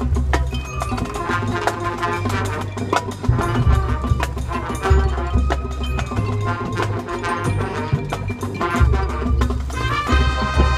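High school marching band playing a percussion-led passage: sharp struck hits from drums and mallet keyboards over a heavy low bass.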